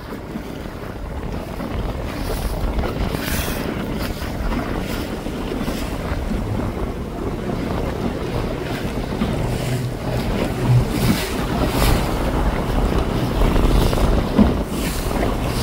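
Wind buffeting the microphone in uneven gusts over the wash of water around a boat.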